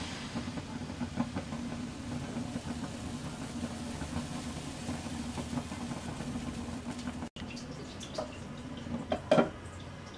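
Pancake batter poured and spread in a nonstick frying pan over a steady low hum. About nine seconds in, a glass lid clinks down onto the pan.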